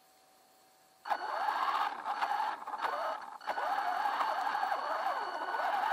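WLtoys 10428 RC truck's electric motor and gears whining as it drives off about a second in, the pitch rising and falling with the throttle and dropping away briefly twice. Before it moves, only a faint steady hum.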